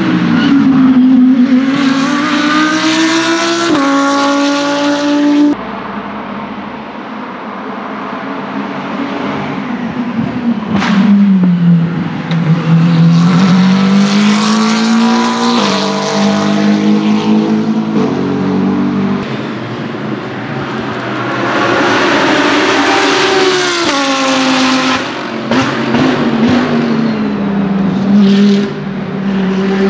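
GT3 race cars at speed one after another, among them a McLaren 720S GT3 and an Audi R8 LMS evo: engine notes rise as they accelerate and drop in steps at each upshift, several times over.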